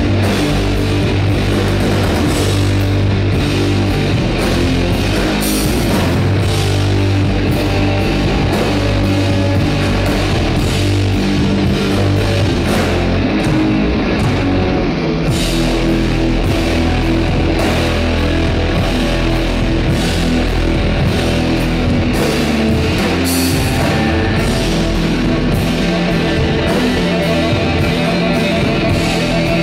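Live rock band playing: distorted electric guitars, bass guitar and drum kit, loud and steady throughout.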